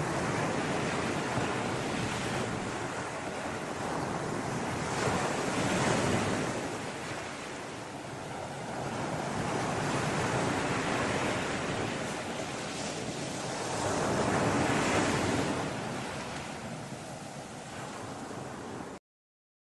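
Ocean waves and wind: a steady rushing noise that swells and ebbs every few seconds, then cuts off suddenly near the end.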